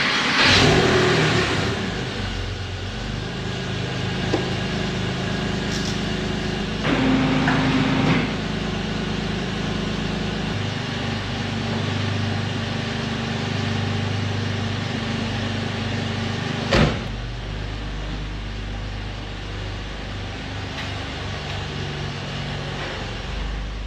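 Porsche 911 (996) flat-six engine running, its pitch shifting a few times, with a louder stretch about seven seconds in. A single sharp knock, like a car door shutting, comes about seventeen seconds in.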